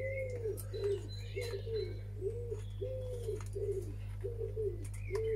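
A pigeon cooing over and over: a run of short, rising-and-falling low coos, about two a second, over a steady low hum. Faint higher bird chirps and a few light clicks come through as well.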